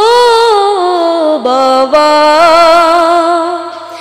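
A boy singing a Bengali Islamic gojol, drawing out long held notes on the word "baba" with a wavering vibrato. The pitch drops about one and a half seconds in, and the voice fades away near the end.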